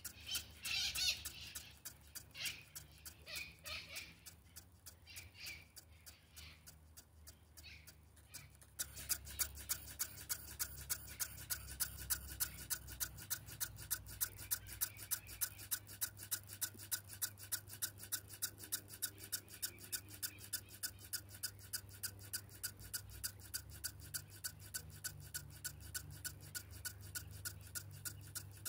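JR S8477 SS digital servos stepping through their synchronization auto-adjust: the follower servos learn the master's position in one-degree increments, making short buzzing ticks. The ticks come irregularly at first, then from about nine seconds in settle into a quick, even run of several a second over a low steady hum.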